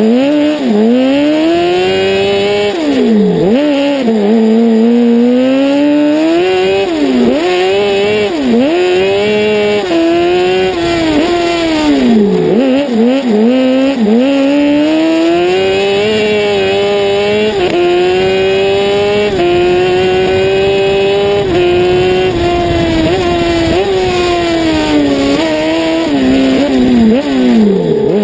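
Honda 600 engine of an Ape Proto racing three-wheeler, heard close up from on board, revving hard through a lap. The engine note climbs and falls again and again: it drops sharply when braking into corners and dips briefly at gear changes as it accelerates out.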